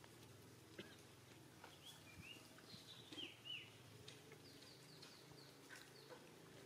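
Faint, short, high chirping calls: a cluster of quick rising and falling squeaks in the middle, then a brief run of rapid falling chirps, over a quiet background with a few light clicks.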